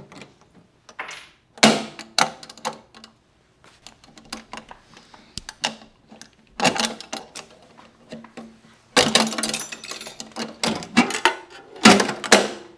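Padlock and steel ammo can lid clicking and clanking as the padlock is worked through the hasp and the lid latch handled. Scattered sharp metal clicks and clacks, thickest about nine seconds in, with a loud clack near the end.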